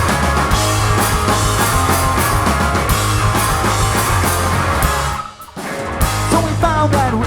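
A punk rock band playing live: electric guitars, bass and drum kit in an instrumental passage between sung lines. About five seconds in the band stops for about half a second, then comes back in together.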